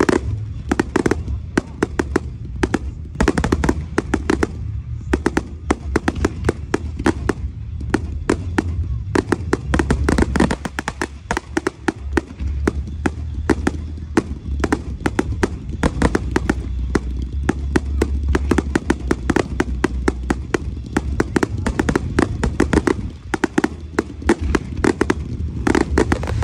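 Fireworks display: a dense, rapid run of aerial shells bursting and crackling, many cracks a second, over a continuous low rumble.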